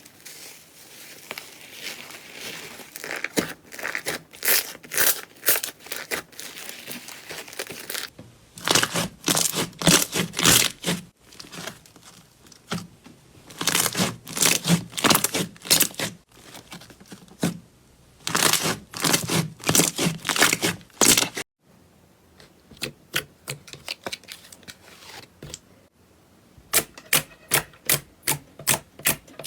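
Slime being squeezed and worked in the hands, giving dense crackling and popping in repeated bursts of a few seconds; near the end, a quick run of sharp separate clicking pops.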